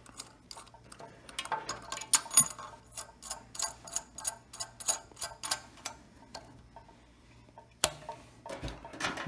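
Light metallic clicks and ticks, a few a second, as the mounting nut is spun by hand onto the threaded shank of a shampoo bowl faucet against its clip. The clicks thin out, with one sharp click near the end.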